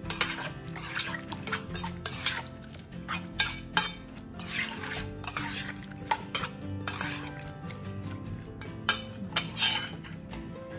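Metal spoon stirring a soy sauce and vinegar marinade with garlic and ginger in a stainless steel mixing bowl, scraping and clinking against the bowl at an irregular pace, over soft background music.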